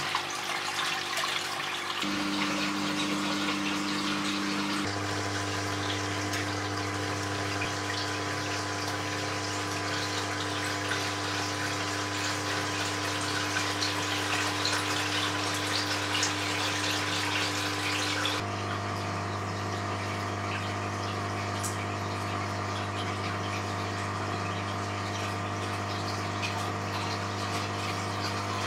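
Water rushing out of a LEGO model dam's open sluice gate and splashing into the basin below, a steady gushing with a low hum underneath. The sound shifts abruptly about five seconds in and again about two-thirds of the way through.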